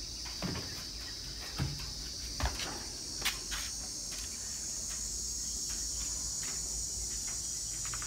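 Steady high-pitched buzzing of an insect chorus. In the first few seconds a handful of dull thumps and knocks sound as a man climbs down off the metal bed of a cargo vehicle loaded with rice sacks.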